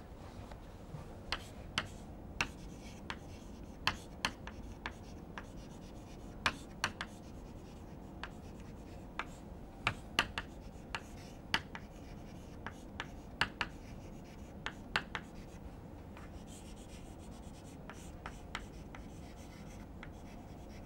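Chalk writing on a blackboard: irregular quiet taps and short scratches as each letter is stroked on, over a faint steady room hum.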